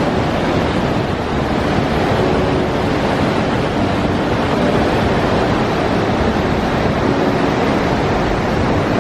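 Naena Falls, a large waterfall, roaring: a loud, steady rush of falling water with no let-up.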